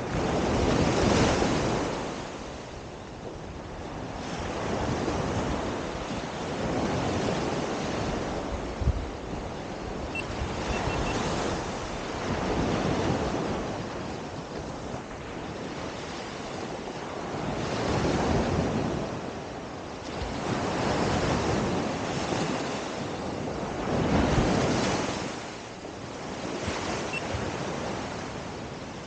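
Ocean surf breaking and washing up a sandy beach, rising and falling in slow swells every few seconds.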